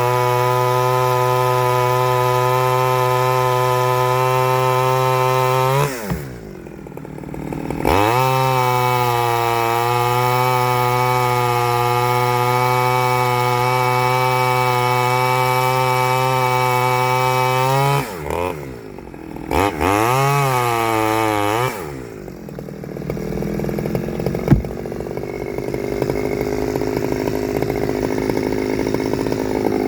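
Stihl 009L two-stroke chainsaw on its standard single-screw carburettor, running at steady high revs. The revs fall away about six seconds in and climb back up two seconds later, fall again past the middle with a short blip, and the saw settles into lower, rougher running for the last several seconds, with one sharp click.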